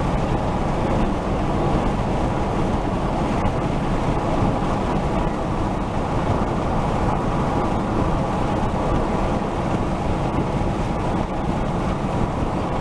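Steady rumble of tyre and wind noise from a car driving at highway speed, heard from inside the cabin.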